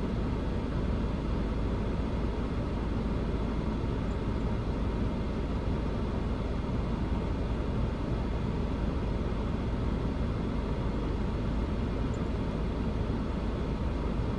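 Vehicle running, a steady low rumble of engine and driving noise with no breaks or changes.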